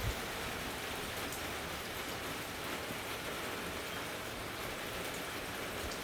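Rain falling steadily, an even hiss with no gusts.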